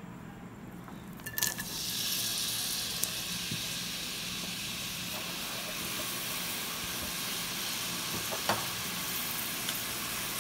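Chopped onions tipped into hot oil in a cooker about a second in, then frying with a steady sizzle.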